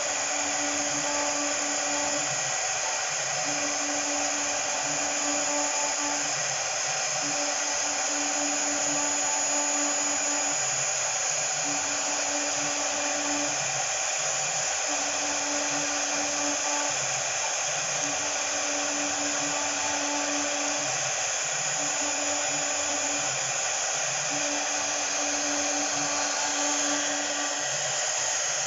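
Small CNC router running with its 3.5 kW air-cooled spindle whining steadily at high speed. The axis motors hum in repeated moves about every two seconds, typical of back-and-forth machining passes.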